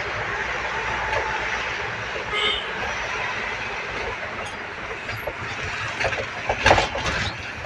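Ambulance on the move: a steady rumble of road and engine noise, with a few sharp knocks near the end.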